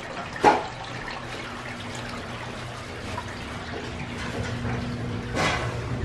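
A steady rushing noise like running water, with a low hum under it, broken by two sharp knocks, one about half a second in and one near the end.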